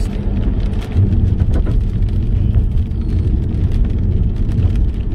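Road noise heard inside a car driving on a wet road in the rain: a steady low rumble of engine and tyres on wet pavement, with scattered light ticks of rain on the car.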